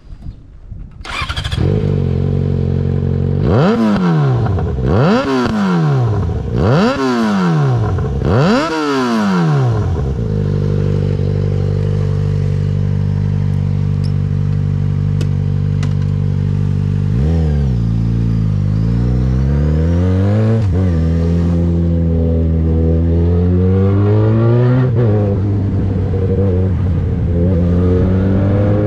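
Yamaha XJ6's 600 cc inline-four, on a LeoVince exhaust with the dB-killer removed, starts about a second in, is blipped four times in quick succession, then idles steadily. Near the middle it pulls away, engine pitch climbing with two gear changes marked by sudden drops in pitch.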